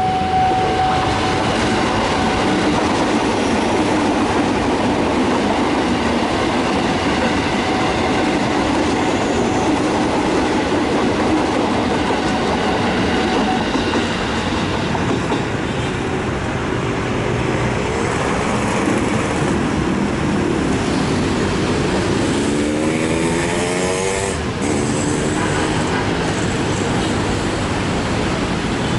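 JR 205-series electric commuter train passing close by: a steady rumble with wheels clattering over the rails. A steady tone runs until about halfway through, and a short rising whine comes near the end.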